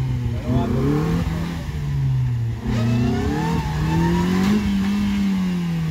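Maruti Suzuki Swift's petrol engine revving as the car is driven through deep mud: the revs sag, climb again from about three seconds in, and ease off near the end.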